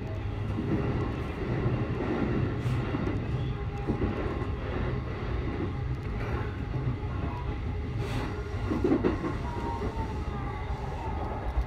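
JR Keihin-Tohoku Line E233-series electric commuter train running along the track, heard from inside the front car: a steady low rumble of wheels on rail with a few clacks from the wheels. A faint whine falls slightly in pitch near the end.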